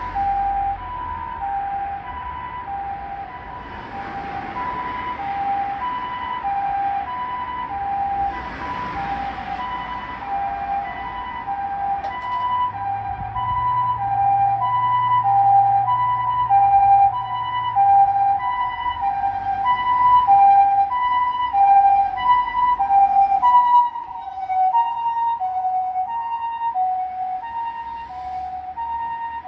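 Japanese ambulance-style two-tone electronic siren (Osaka Siren) on a neonatal doctor car running on an emergency call: a high and a low tone alternating evenly, a full cycle a little over a second. It grows louder as the vehicle comes close, loudest in the middle, then drops as it moves away.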